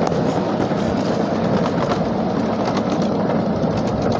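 Miniature ride-on train cars rolling along small-gauge track: a steady running noise of wheels on rail, with frequent small clicks.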